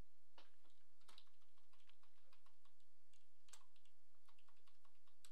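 Computer keyboard keys pressed one at a time, irregular scattered keystrokes rather than fast continuous typing, as a line of text is edited.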